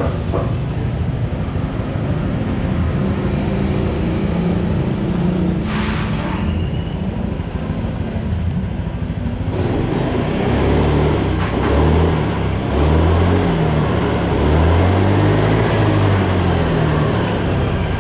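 Honda Vario 110 carburetted scooter's single-cylinder four-stroke engine running, its pitch rising and falling from about ten seconds in as it is revved for a charging-voltage test with the regulator-rectifier fitted.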